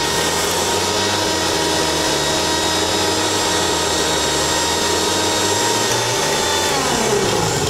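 Bajaj electric mixer grinder with a steel jar running at full speed, powdering biscuits: a steady motor whine over the churning of the jar's contents. Near the end its pitch falls as the motor winds down.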